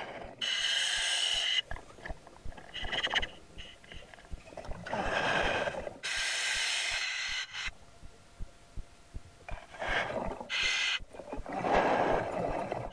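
A scuba diver breathing through a regulator in a full face mask. Each inhale draws a hiss through the regulator, and each exhale sends out a rush of bubbles, over a few slow breaths.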